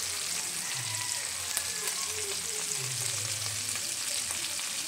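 Small whole fish frying in hot oil in a pan, a steady sizzle.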